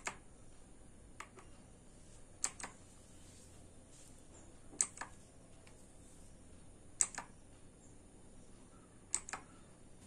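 A single key on a Quantum QHM9800 mechanical keyboard with blue switches is pressed about every two seconds. Each press gives a sharp click followed by a softer click on release.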